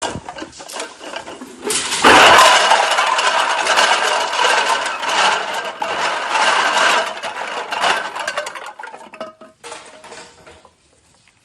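Many empty metal cans clattering and clinking against one another. The clatter sets in loudly about two seconds in and thins out toward the end.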